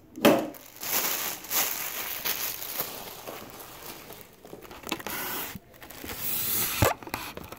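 Plastic packaging crinkling and rustling as it is handled and pulled apart, with a single knock near the end.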